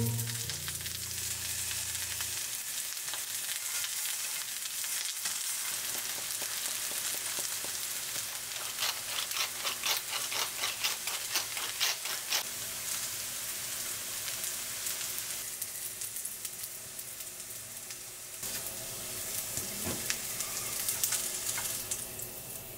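Lotus root slices sizzling in olive oil in a frying pan, a steady frying hiss with a run of sharper crackles partway through.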